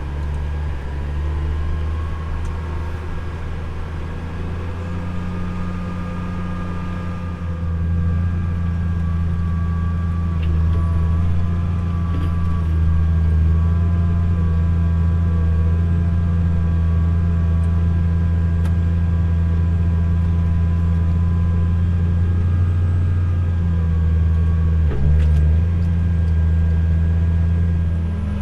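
A tractor's diesel engine running steadily under load while pulling a field cultivator: a low, even drone that grows louder about eight seconds in.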